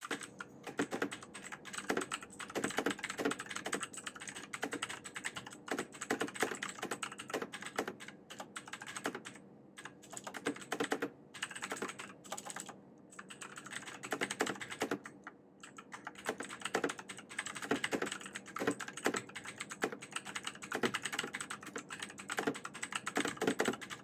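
Fast typing on a Zebronics Max Pro full-size mechanical keyboard: a dense, irregular run of key clicks and clacks, broken by a few brief pauses.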